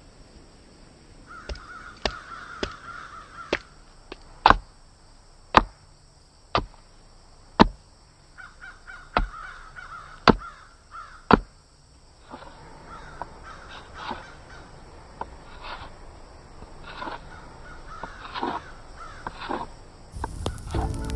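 Crows cawing, with a run of about a dozen sharp knocks, roughly one a second, that are the loudest sounds; softer clicks and calls follow.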